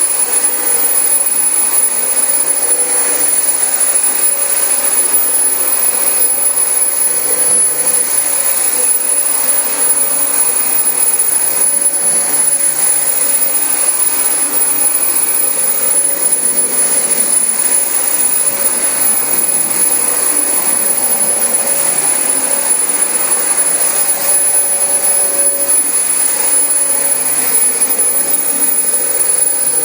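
Dyson DC25 upright vacuum cleaner running steadily on carpet: a loud rush of air with a thin, high, steady whine from the motor.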